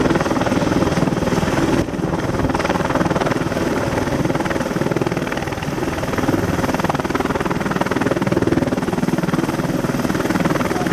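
AH-64 Apache attack helicopter running on the ground with its main rotor turning, taxiing slowly. Its twin turboshaft engines whine under a steady, rapid rotor chop.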